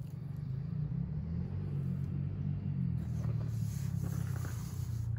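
A low, steady engine rumble, like a vehicle running, with faint rustles and light touches of dry wood shavings being gathered by hand about three to four seconds in.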